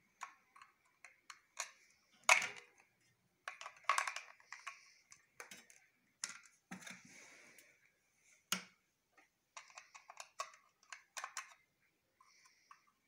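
Irregular plastic clicks, taps and knocks from an Epson inkjet printer's print head and carriage parts being handled and unclipped by hand. The loudest knocks come about two seconds in, around four seconds in and about eight and a half seconds in.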